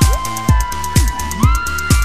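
Electronic background music: a steady kick drum about twice a second under synth notes that slide up in pitch and hold.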